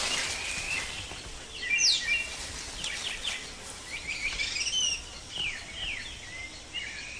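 Birds chirping and whistling against a steady rainforest background hiss, with several quick whistles that sweep down in pitch.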